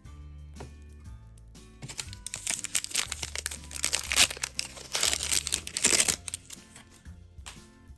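Crinkly toy packaging being crumpled and torn open, a loud run of crackling for about four seconds in the middle, over light background music.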